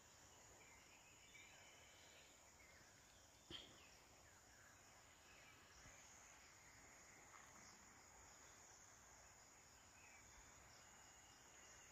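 Near silence: faint, steady high chirring of insects, with a single soft click about three and a half seconds in.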